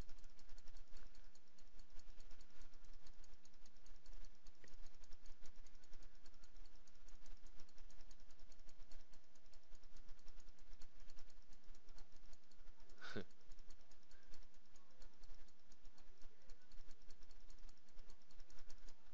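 Computer mouse clicking rapidly and steadily as stitch points are placed one by one in embroidery digitizing software, with a single louder short sound about two-thirds of the way through.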